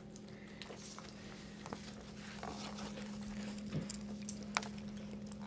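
Soft wet licking and towel rustling as a Bichon Frise mother cleans her newborn puppy, with scattered faint clicks over a steady low hum.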